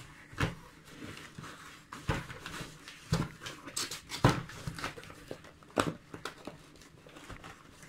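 Cardboard box flaps being pulled open and the box handled on crinkly paper wrapping: irregular knocks, scrapes and rustles, the sharpest about four seconds in.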